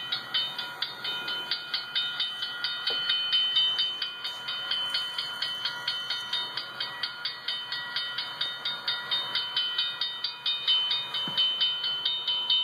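Electronic crossing-gate warning bell on a model drawbridge, dinging rapidly and steadily at about five strikes a second, like a railroad crossing bell, while the gate lights flash.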